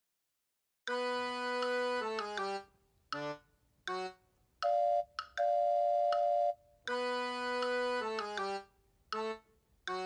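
Background music: a simple melody of clear held and short notes that starts after about a second of silence, its opening phrase coming back near the end.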